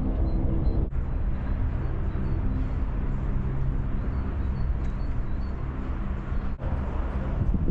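Steady outdoor rumble of vehicle traffic with a low hum, breaking off for an instant twice.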